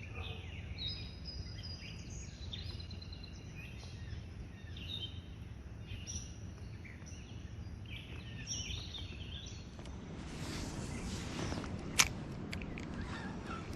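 Songbirds chirping and whistling over low steady outdoor rumble. About ten seconds in a rushing noise rises, and a single sharp click comes just after twelve seconds.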